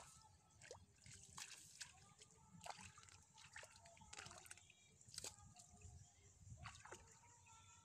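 Faint sloshing and splashing of shallow muddy water as someone wades through it and works their hands in it, with scattered small splashes and drips.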